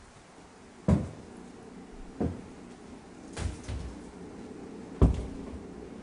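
Slow footsteps on a hard floor: four dull thuds, a second or more apart.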